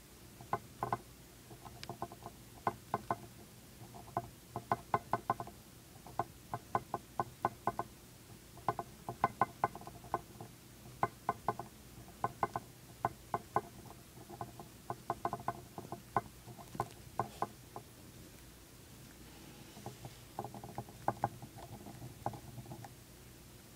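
Dwarf hamster gnawing a cheese chew made of wheat gluten, dried rice and corn: quick runs of small sharp clicks, several a second, with a pause of about two seconds near the end before a last run.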